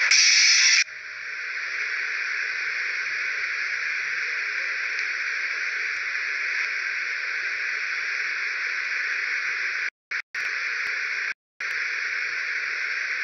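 A steady, even hiss, which cuts out for a moment twice near the end. Music stops less than a second in.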